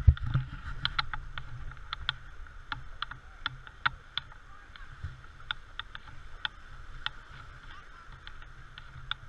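Shallow surf splashing and sloshing around feet running and wading through ankle-deep water, with many irregular sharp ticks over a steady low wind rumble on the microphone. There is a loud bump right at the start.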